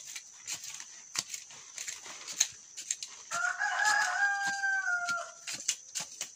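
A rooster crows once, a single call of about two seconds starting about halfway through. Around it come scattered short knocks and scrapes from a hand tool digging into soil around cassava roots.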